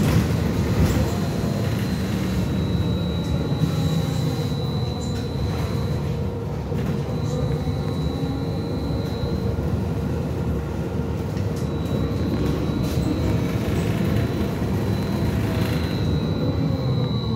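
Interior of a BKM 43300D trolleybus under way: the electric traction drive whines steadily over the rumble of the tyres and road. Near the end the whine starts to fall in pitch as the trolleybus slows.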